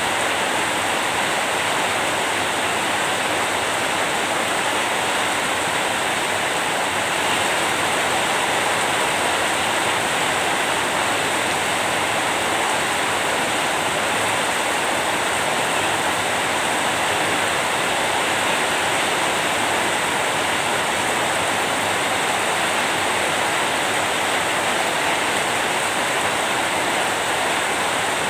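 Heavy rain falling steadily, an even unbroken hiss with no single drops, thunder or other events standing out.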